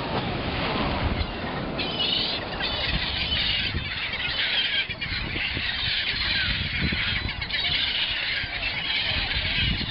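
A flock of seagulls screeching and squawking in many overlapping high calls, over a low rumble of wind on the microphone.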